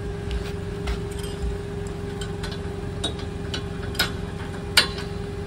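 Metal clicks and clinks of a trailer coupler and safety chains being hooked onto a vehicle's hitch. A few scattered sharp clicks, one about four seconds in and the loudest just before the end, over a steady hum.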